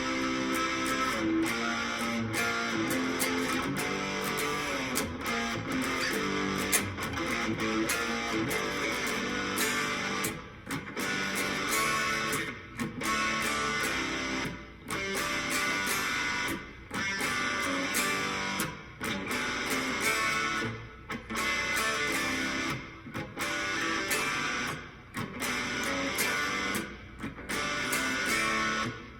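Electric guitar played with overdrive, strumming a rock riff; from about ten seconds in the riff breaks off in short stops roughly every two seconds.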